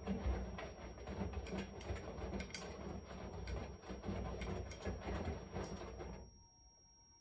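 Washing machine running, its drum churning with a low rumble and many small knocks and clicks, then stopping suddenly about six seconds in.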